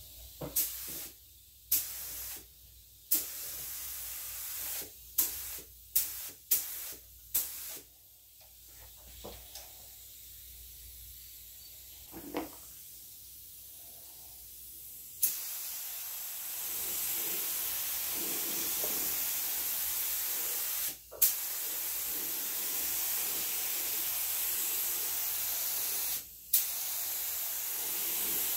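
A SprayIt 33000 LVLP gravity-feed paint spray gun hissing as air and paint spray from the nozzle. First comes a string of short trigger bursts, each with a sharp start. About halfway through it changes to long steady spraying passes, broken twice by brief pauses.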